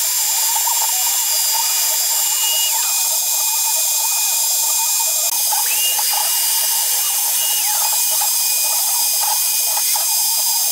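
Atlas Copco router running steadily as the spindle of a CNC router, its bit cutting into wood. Twice, a higher whine rises, holds for about two seconds and drops away as the machine moves.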